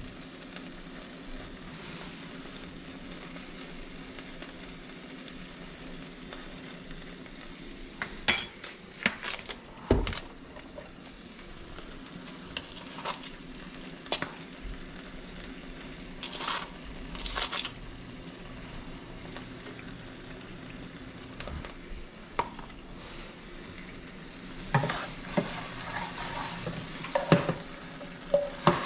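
Oil sizzling steadily in a frying pan, with scattered clicks and scrapes of a utensil against the pan, in clusters about eight to ten seconds in, in the middle, and again near the end.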